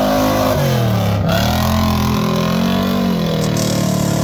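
Big mud truck's engine revving under load in deep mud. Its pitch drops about a second in, then climbs back and rises and falls again.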